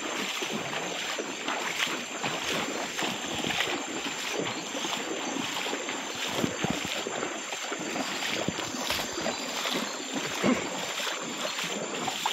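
Water sloshing and splashing around a person's legs as they wade through a flowing river.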